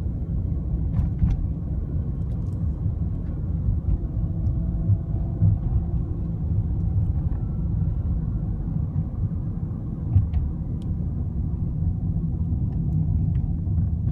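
2012 Volkswagen Jetta on the move: a steady low rumble of road and engine noise, with a few faint light clicks scattered through it.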